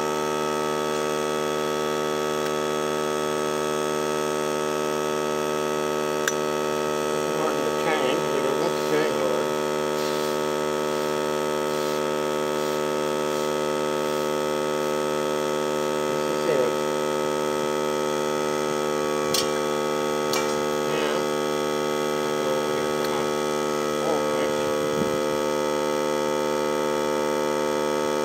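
Steady hum made of many steady tones, unchanging throughout, with a few short wavering sounds and a couple of sharp clicks over it.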